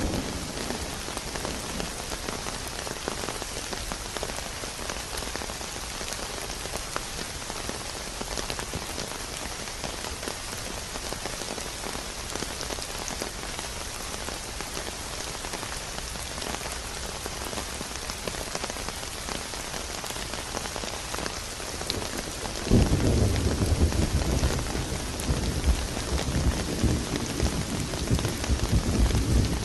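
Steady rain falling, with a low rumble of thunder that breaks in about three quarters of the way through and rolls on to the end.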